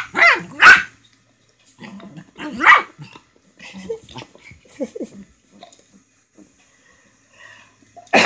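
Small dogs barking as they play-fight: three sharp barks in quick succession at the start, another loud one about two and a half seconds in, then fainter, shorter yaps around four to five seconds in.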